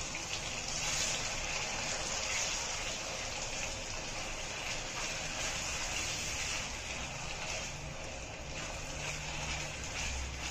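Ground tomato-onion paste sizzling in hot oil in a stainless steel kadai as it is stirred with a spatula: a steady frying hiss.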